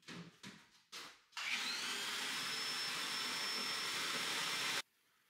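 Canister wet-and-dry shop vacuum switched on about a second and a half in, its motor whine rising to a steady high pitch as it runs, then switched off abruptly near the end. A few short knocks come first.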